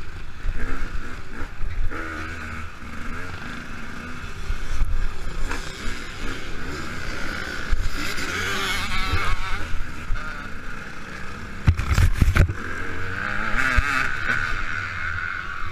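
KTM 200 EXC two-stroke single-cylinder dirt bike engine revving up and down under riding load, with wind noise on the microphone. A brief bout of loud knocks about twelve seconds in.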